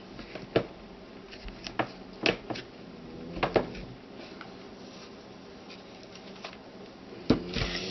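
Hands pressing a mounted rubber stamp onto cardstock in a clear stamping tool and lifting its lid: a scattering of soft knocks and taps of plastic and paper, the loudest pair near the end.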